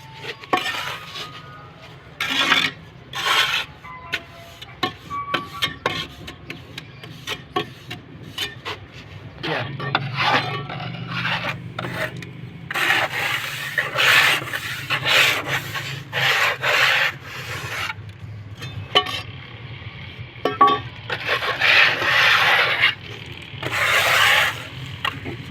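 Irregular rough scraping and rubbing strokes of a tool on a hard surface, each about half a second to a second long and coming closer together in the second half, over a steady low hum.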